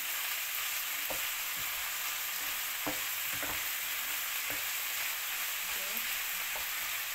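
Chicken pieces and fresh tomato wedges sizzling in a frying pan while being stirred with a wooden spatula, which scrapes and knocks against the pan a few times.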